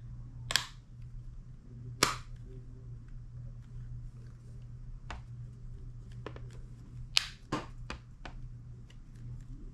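iPod classic case clips snapping and clicking as the metal back and front shell are pressed together: a handful of sharp snaps, the loudest about half a second in, two seconds in and just after seven seconds in, with lighter clicks between.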